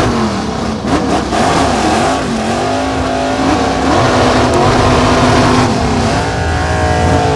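Car engine revving loudly, its pitch wavering up and down for the first couple of seconds, holding steady through the middle, then dropping near the end.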